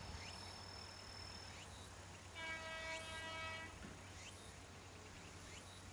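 Kanto Railway diesel railcar KiHa 532 sounding its horn once, a single steady blast about a second and a half long starting about two seconds in, over a faint low hum.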